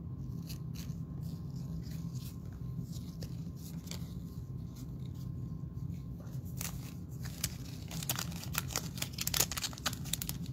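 Basketball trading cards and their plastic cello-pack wrapper being handled: scattered light crinkles, ticks and tearing sounds, busier in the last couple of seconds, over a steady low hum.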